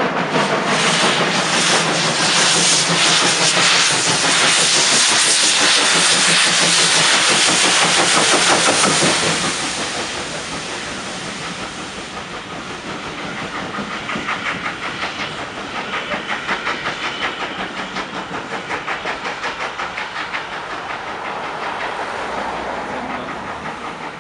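Steam locomotive working under load as it approaches and passes close by: quick exhaust beats merge into a loud rush of steam for about the first ten seconds. The sound then drops, and the train runs on with a rhythmic clatter of wheels over the rail joints.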